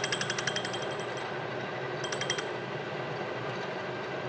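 Metal lathe running while a boring bar cuts inside a rough cast-iron casting: an interrupted cut, the tool ticking rapidly and evenly as it strikes the uneven casting surface, in a spell of about a second and a half and again briefly a little after two seconds, over the lathe's steady hum.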